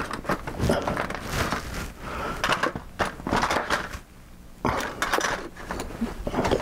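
Irregular light clicks, taps and rustles of small hobby tools and model parts being picked up and moved about on a workbench, with a quieter moment partway through.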